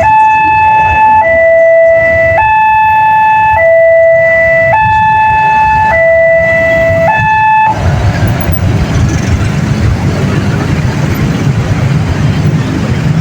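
Railway level-crossing warning siren sounding a two-tone hi-lo alarm, each tone held about a second, that stops abruptly a little over halfway through. A steady rumbling noise follows.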